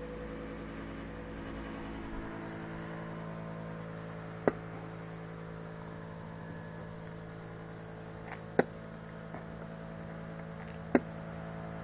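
Steady low hum with several overtones, broken three times by a short sharp click.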